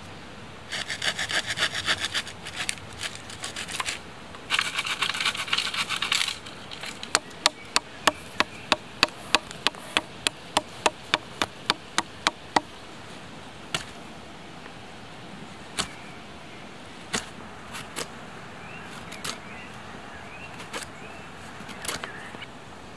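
A hand saw cutting through a dead aspen branch in quick back-and-forth strokes, two runs in the first six seconds. Then a blade chops into the branch against a log about twice a second for several seconds, followed by occasional single knocks and light scraping as the wood is shaped for a bow drill set.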